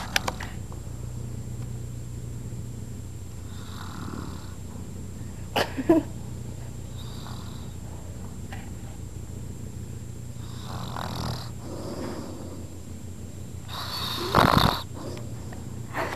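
A man snoring in his sleep, in irregular separate snores. There are short sharp ones about six seconds in, and the loudest, longest snore comes about fourteen seconds in, over a steady low hum.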